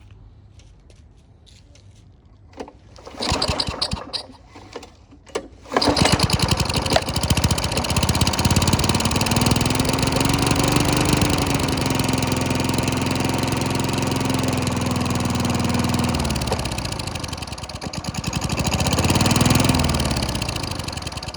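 Tecumseh lawn mower engine pull-started: a pull on the recoil cord about three seconds in, then the engine catches about six seconds in and runs steadily, its carburettor just cleaned in place with spray cleaner. The engine slows about sixteen seconds in, revs up briefly and drops back near the end.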